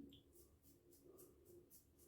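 Very faint scraping of a safety razor's blade drawn over a lathered face in short, quick strokes, about five a second.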